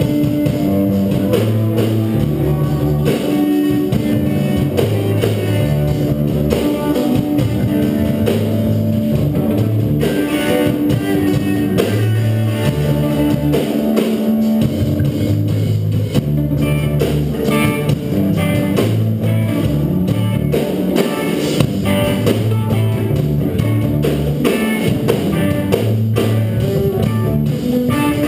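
Live rock band playing: electric guitars over a drum kit, with a steady bass line changing notes.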